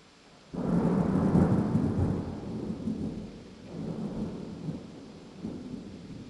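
Thunder: a sudden clap about half a second in, then a low rumble that rolls on in several weaker waves and slowly fades.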